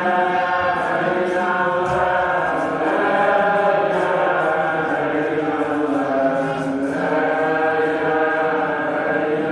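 Voices chanting in a mosque, holding long notes without a break.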